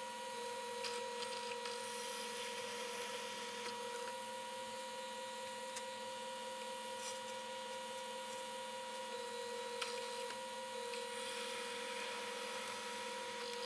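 Benchtop drill press motor running steadily with a constant hum and whine, with a few faint ticks.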